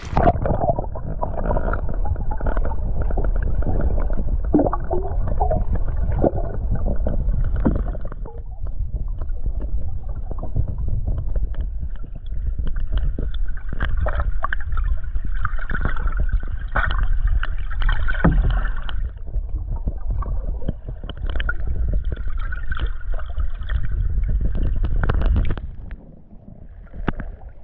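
Lake water sloshing and gurgling around a GoPro held just under the surface, heard muffled through the submerged camera as a deep rumble with scattered knocks. Near the end the sound drops away sharply as the camera comes back up to the surface.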